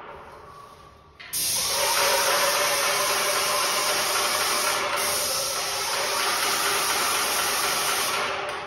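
Spray wand on a hose spraying onto the glass: a steady, loud hiss that cuts in abruptly about a second in and tails off near the end, with a faint steady hum underneath.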